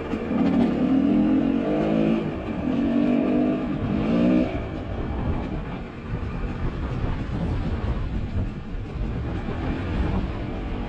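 Two-stroke GasGas dirt bike engine on the move, its revs climbing several times in short rising pulls over the first four seconds or so. It then eases back to lower, rougher running for the rest of the stretch.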